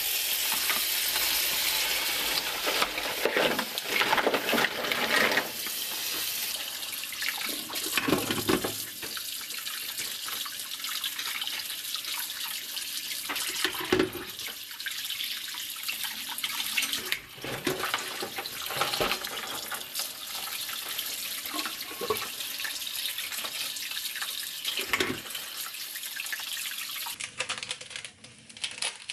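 Kitchen tap running hard into a plastic bowl in a stainless steel sink, with clam shells knocking together as they are rubbed and rinsed under the stream. The running water drops away near the end.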